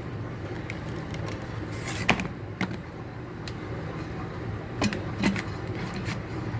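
Scattered clicks and knocks of objects being handled, the sharpest about two seconds in and a pair near the end, over a steady low hum.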